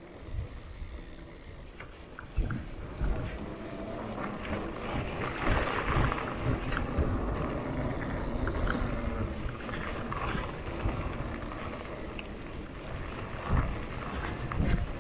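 Mountain bike being ridden on a dirt singletrack: tyres rolling over dirt and grass, with irregular knocks and rattles from the bike over bumps and wind on the microphone.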